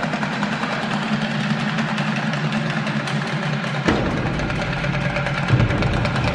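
Contemporary percussion music: a dense, sustained drum roll with a steady low drone. A sharp strike about four seconds in brings in a deeper rumble, which swells near the end.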